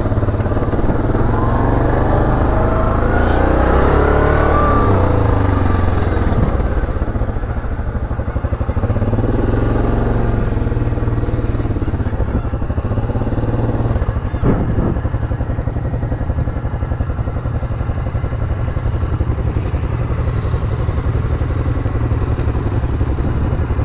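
ATV engine running under way on a rocky dirt trail. Its pitch revs up and falls back between about two and six seconds in, with one short knock about two-thirds of the way through.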